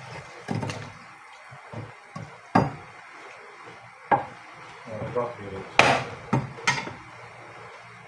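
Meat cleaver chopping chicken on a wooden chopping board: half a dozen sharp chops at uneven intervals, the loudest about six seconds in.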